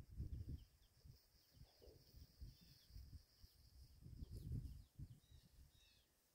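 Near silence: quiet outdoor ambience with faint bird chirps and a steady faint high hiss, broken by low rumbles on the microphone near the start and again about four seconds in.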